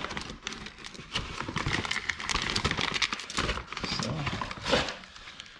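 Plastic and paper packaging crinkling and rustling as it is handled, with scattered knocks and one louder knock a little before the end.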